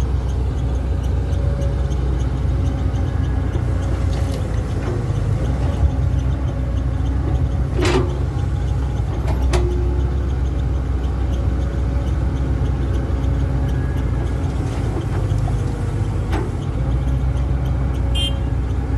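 Diesel machinery running steadily as a Komatsu HB205-1 hybrid excavator loads a dump truck: a constant low rumble with a faint steady whine. A few sharp knocks are heard, the clearest about eight and nine and a half seconds in, as the bucket works soil into the truck's bed.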